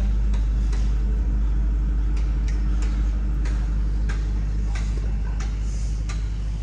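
A large engine running steadily at low revs, a deep hum, with short clicks about twice a second over it.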